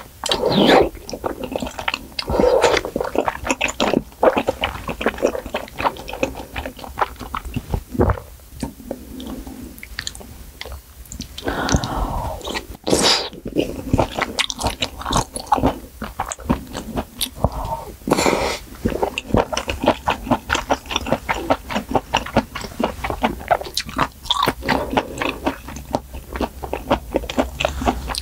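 Close-miked eating of malatang: steady chewing with many wet mouth clicks, broken by louder slurps of broth and noodles about a second in and again around twelve seconds in.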